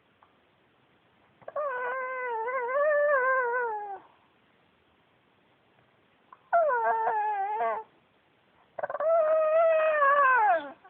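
A Pekingese dog 'talking': three drawn-out, wavering howl-like whines. The first and last slide down in pitch at the end, and the middle one is shorter and broken up.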